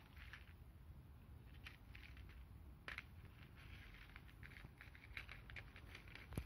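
Cat eating: faint, irregular chewing clicks, with one sharper click about three seconds in.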